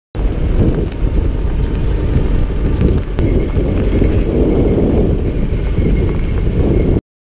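Old truck driving on a rough dirt track, heard from its open back: a loud, steady low rumble of engine and road noise that cuts off suddenly near the end.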